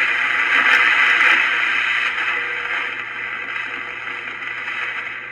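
Static hiss from a 1960s Times germanium shortwave radio's speaker, tuned between stations on a shortwave band with no station coming in. It is louder for the first two seconds, then eases off, over a faint steady hum.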